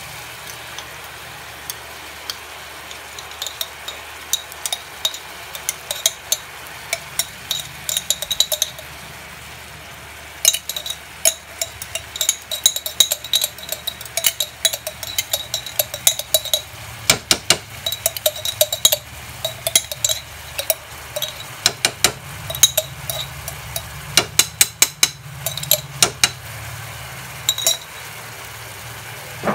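A metal spoon clinking and scraping against a glass jar as thick crab paste is scooped out of it, in irregular runs of short ringing clicks that thicken about a third of the way in. A steady low hum runs underneath.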